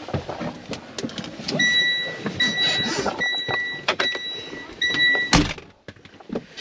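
A semi truck cab's warning chime sounding five even, steady beeps. The beeping stops as a door slams shut about five seconds in. Before it come knocks and clicks of someone climbing in.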